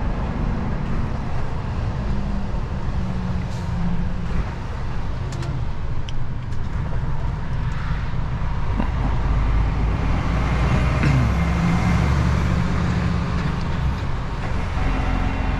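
DAF XF truck's diesel engine running under way, a steady low drone with road noise; the engine note shifts a few times, briefly rising and falling about eleven seconds in.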